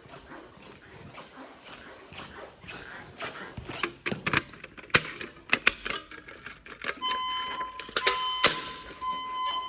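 A voice-evacuation fire alarm speaker sounds a steady, single-pitched alert tone starting about seven seconds in, broken briefly a couple of times, leading into the next evacuation message. Before it comes a run of sharp clicks and knocks.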